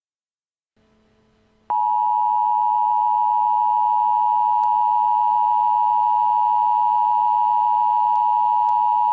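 Emergency alert attention tone: one loud, steady electronic tone near 1 kHz that starts abruptly about two seconds in and holds without a break. A faint hum comes in just before it.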